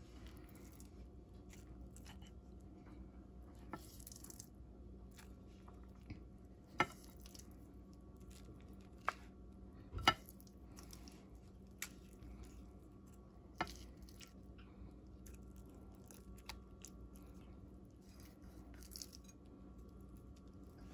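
Quiet kitchen room tone: a faint steady hum with a handful of short, sharp clicks scattered through, the loudest about halfway.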